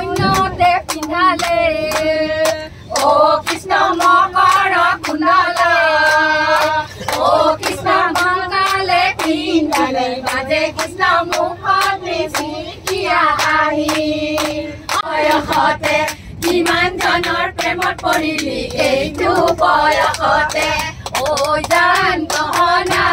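A group of women singing a song together in chorus, with steady rhythmic hand-clapping keeping the beat.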